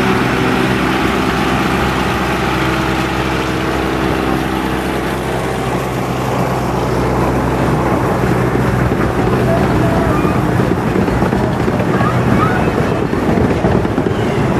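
A 15-inch gauge diesel locomotive passing close by, its engine running with a steady drone, followed from about halfway by the rumble and clatter of its carriages rolling over the track.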